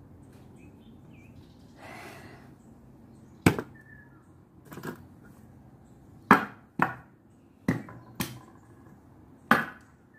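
Seven sharp chopping or knocking strikes at irregular intervals, starting about a third of the way in, two of them in quick pairs.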